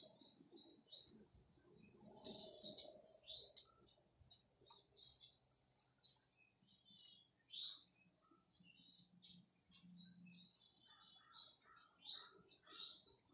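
Small songbirds chirping faintly, many short high chirps in quick, irregular succession, with a couple of brief scratchy rustles between about two and four seconds in.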